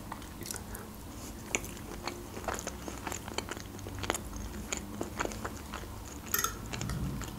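Quiet, close-miked chewing of soft mashed potato, with small wet mouth clicks throughout. A metal fork scrapes and taps on a plate, with a short run of sharp clicks near the end.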